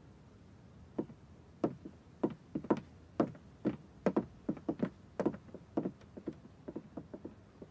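Footsteps on a hard floor: two people walking away, sharp steps starting about a second in, about two to three a second and sometimes overlapping.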